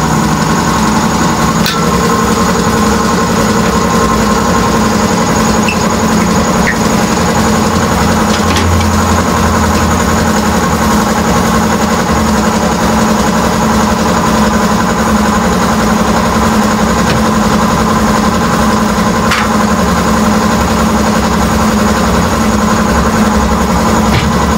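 A steady, loud motor drone like an engine running without change, with a few faint clicks over it.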